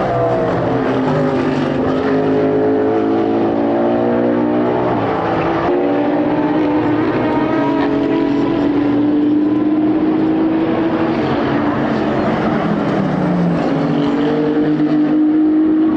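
Endurance race car engines at high revs, several engine notes overlapping, each pitch climbing steadily and dropping sharply at a gear change, with drops about five seconds in and again near the end.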